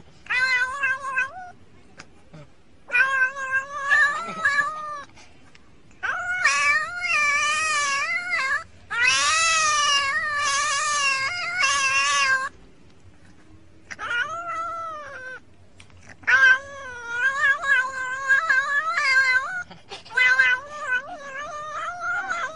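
Cat yowling in a series of about seven long, wavering cries, each lasting one to three seconds, with short pauses between them.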